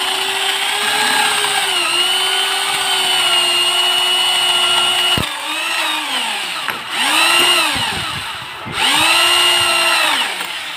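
Corded electric drill with a Forstner-type bit boring a round hinge-cup hole in laminated plywood. The motor runs steadily for about five seconds, then stops and winds down. It is triggered twice more in short bursts, each spinning up and winding down again.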